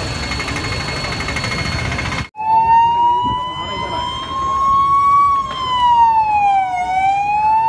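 Fire engine siren wailing, its pitch gliding slowly up, then down, then up again. It comes in suddenly about two seconds in, replacing a steady noisy din.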